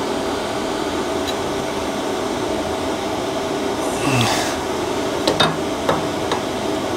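A steady mechanical hum with a faint whine, like a running motor. About four seconds in there is a brief rustle, then a few light clicks as a metal tube is handled against a motorcycle frame.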